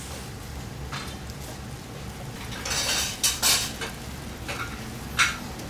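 Hand-rolling gimbap with plastic-gloved hands on a plastic cutting board: brief rustling and scraping about three seconds in and a short sharp tap near the end, over a steady low kitchen hum.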